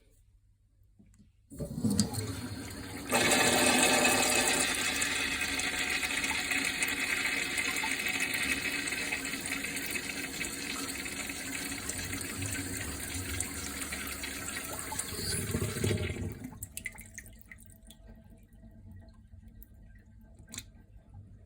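Urinal flush valve flushing: water rushes into the bowl for about fourteen seconds, growing louder a second after it starts, then shuts off and tapers to a faint trickle and drips.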